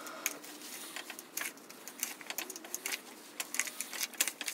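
Fingers rubbing cold butter into almond flour in a plastic mixing bowl: irregular scratchy clicks and rustles of the sandy, clumpy mixture and fingertips scraping the bowl.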